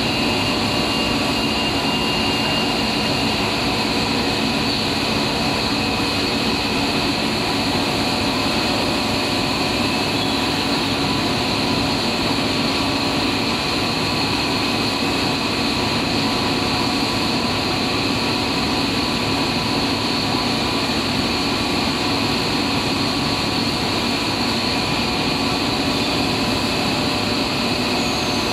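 Cast stretch film production line running: a steady machine hum and whine, several held tones over a dense hiss, unchanging throughout.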